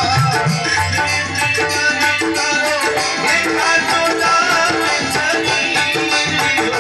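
Rajasthani folk bhajan music, an instrumental passage: a pitched melody line over a steady hand-percussion rhythm.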